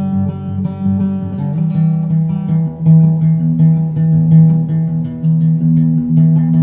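Instrumental background music: plucked notes over held low tones.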